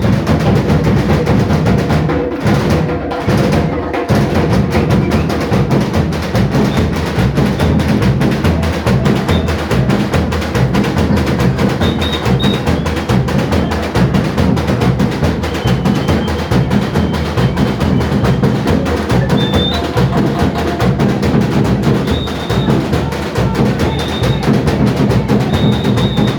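Samba batucada: a bateria of drums and percussion playing a dense, driving rhythm, with the higher percussion dropping out briefly about two seconds in.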